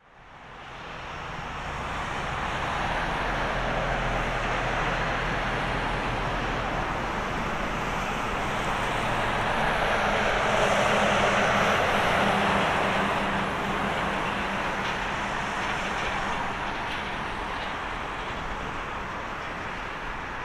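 Jet noise from a Boeing 787-9's two GEnx-1B turbofans on final approach: a steady rushing roar that swells as the airliner nears and is loudest about halfway through, then eases slightly as it passes toward the runway.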